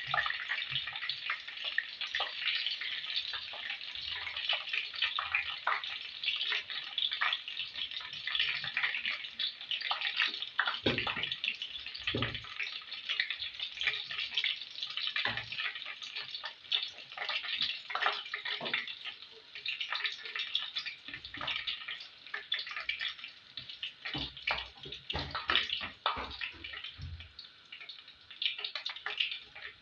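Scotch eggs deep-frying in hot oil: a steady crackling sizzle with scattered louder pops.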